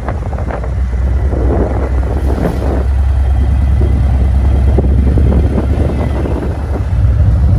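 Harley-Davidson CVO Ultra Glide's V-twin engine running steadily at road speed while riding, with wind noise on the microphone.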